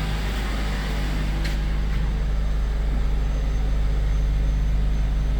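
Nissan Sentra engine idling steadily, running again after its no-start fault was repaired. One light click about a second and a half in.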